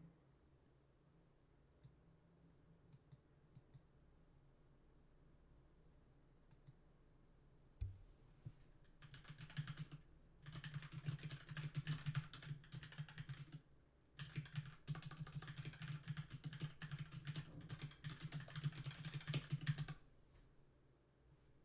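Rapid typing on a computer keyboard in two long runs, from about nine seconds in to about twenty, with a brief pause in the middle, after a single knock. A faint low hum runs underneath.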